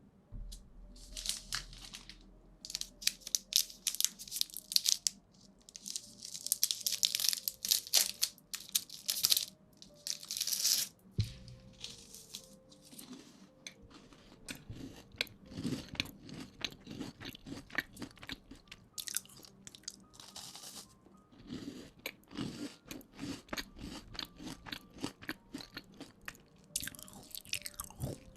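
Close-microphone ASMR trigger sounds: bursts of crisp crinkling or crunching for the first ten seconds or so, then a long run of quick small clicks and taps. Faint background music runs underneath.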